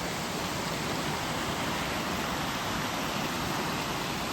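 River water rushing: a steady, even rush of flowing water.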